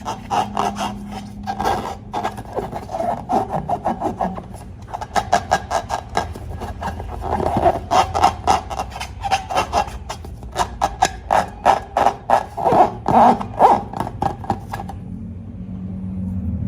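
Quick repeated scraping and rubbing strokes, several a second, that stop near the end.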